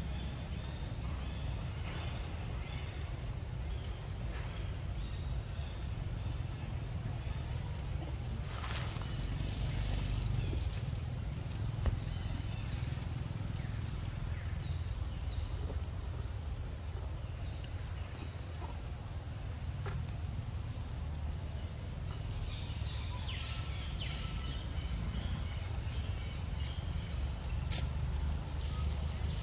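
Forest insects trilling in a steady high drone over a low constant rumble, with a few faint chirps and a brief sharp crackle about nine seconds in.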